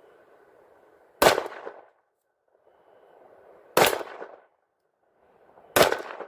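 Three pistol shots, the second about two and a half seconds after the first and the third two seconds later, each a sharp crack with a short echo after it.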